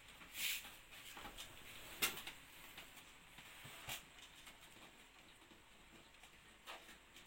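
Faint rustling with a few short sharp clicks, the loudest about two seconds in and another near four seconds in: power-supply cables being handled and routed through a computer case.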